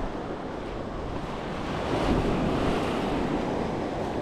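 Sea waves washing onto the shore, with wind buffeting the microphone; the surf swells louder about two seconds in.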